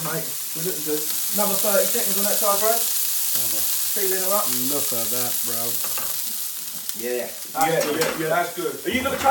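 Beef burger patty sizzling in a ridged griddle pan, pressed down with a slotted metal spatula; a steady hiss of frying fat.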